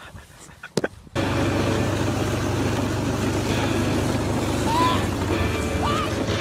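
A motor vehicle's engine running steadily with rushing wind, cutting in abruptly about a second in. Two short rising cries come near the end.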